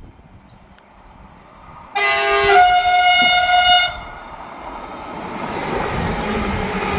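A Class 745 electric train sounds its two-note horn: a short lower note, then a higher note held for over a second. Its running noise then swells as it approaches.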